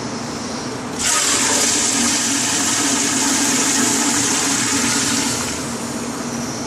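Toilet flushing: a sudden loud rush of water about a second in, lasting about four seconds, then falling back to a quieter steady run of water.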